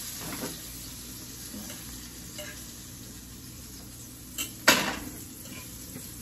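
Shrimp sizzling in a nonstick frying pan on a gas burner, with a utensil scraping now and then. About four and a half seconds in there is a small knock, then a loud clank as the pan is set back down on the stove grate.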